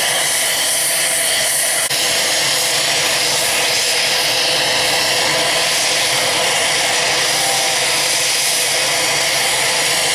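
A Dutch AH-64D Apache Longbow helicopter's gas turbine running steadily on the ground during an engine run: a loud, even rushing hiss with a faint high whine. There is a brief break about two seconds in.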